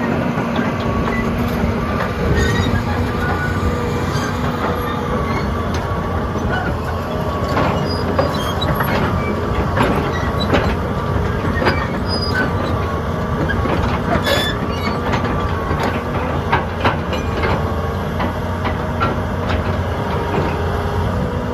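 Deere 330C LC excavator's diesel engine running under a steady whine, with frequent short metallic clanks and squeaks scattered throughout.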